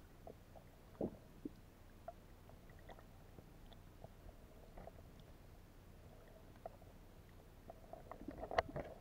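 Faint underwater sound picked up by a submerged camera: a low muffled hiss with scattered small clicks and pops, a louder knock about a second in, and a denser run of clicks and rumbling near the end.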